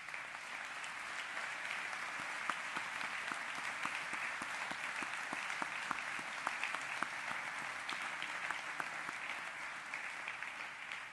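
Audience applauding, many hands clapping together at a steady level, fading out near the end.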